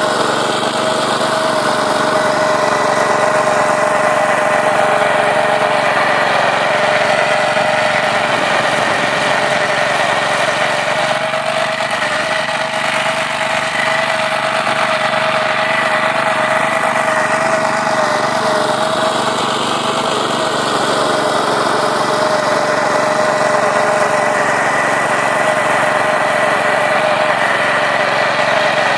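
Small petrol engine of a homemade vertical-tine rotary cultivator running steadily under load as it tills soil, with a steady whine over the engine note.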